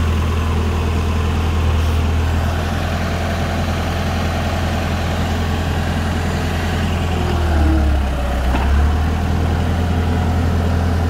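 Bi-directional tractor's diesel engine running steadily as it drives a Seppi rotary tiller through the PTO: a continuous low drone, with the engine note shifting briefly about eight seconds in.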